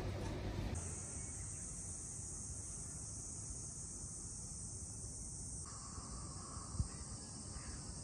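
Rain falling briefly, then a steady high-pitched insect chorus that holds on without a break.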